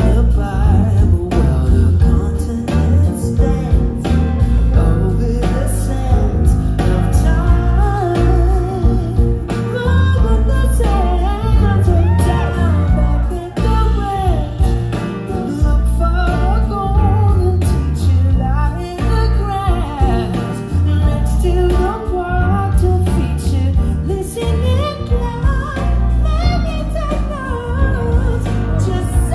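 A live band playing, with electric guitars, bass, drums and keyboard; a man comes in singing lead about seven seconds in and carries on to the end.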